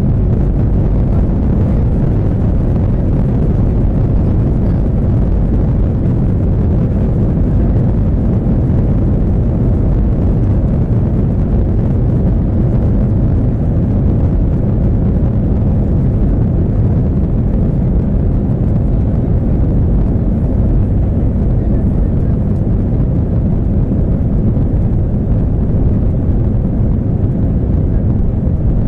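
Airbus A321 airliner on its takeoff run at full thrust, heard from inside the cabin: a loud, steady, deep rumble of the jet engines and the rolling aircraft as it accelerates down the runway.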